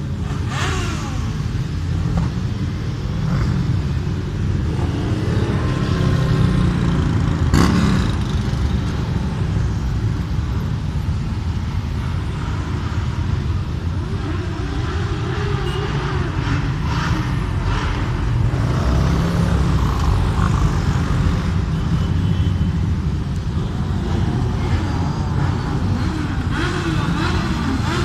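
Many motorcycles riding past in a long procession, their engines rising and falling in pitch as riders throttle through a roundabout. A single sharp bang stands out about a third of the way in.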